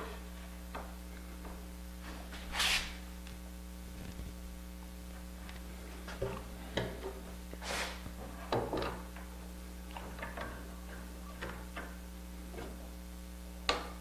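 Steady low electrical hum, with a few light knocks and short sliding scrapes from the doweling jig and workpiece being handled. The loudest scrapes come about three seconds in and again about eight seconds in, and a sharp click comes near the end.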